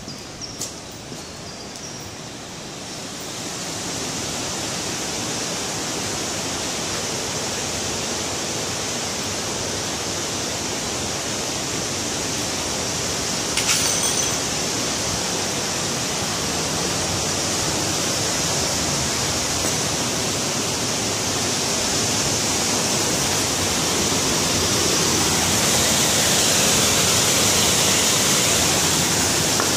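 Steady rushing of a small waterfall tumbling over rocks. It swells over the first few seconds and grows louder again near the end. A single brief knock comes about 14 seconds in.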